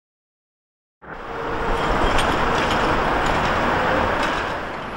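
City street traffic with a trolleybus passing close by: a steady rush of tyre and road noise that starts abruptly about a second in, with a few faint ticks.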